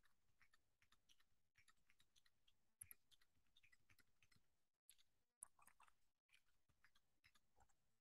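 Computer keyboard typing: faint quick runs of key clicks with short pauses between them, with two sharper, louder clacks about three and five and a half seconds in.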